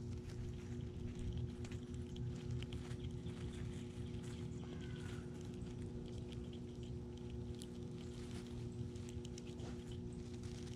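Steady low mechanical hum with faint scattered ticks and taps, and a faint brief chirp about five seconds in.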